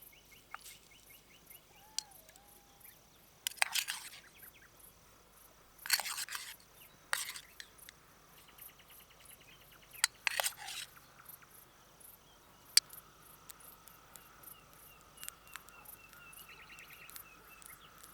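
Crickets and other insects chirring steadily, with trains of rapid chirps, broken by several short rustling or crackling noises from handling things at camp.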